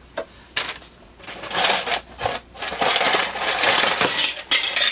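Plastic bag of styrene model-kit parts rustling as it is handled and lifted out of a cardboard box, after a couple of light clicks of plastic parts in the first second.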